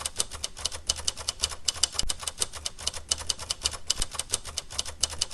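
Rapid typing: a dense, fast run of key clicks, about eight a second, over a low hum.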